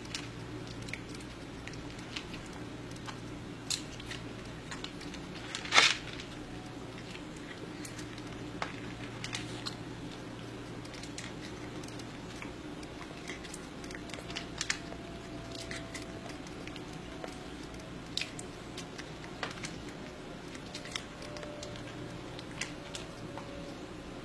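Scattered small clicks and taps of a spoon in a plastic food bowl, with one louder scrape about six seconds in, over a steady low hum.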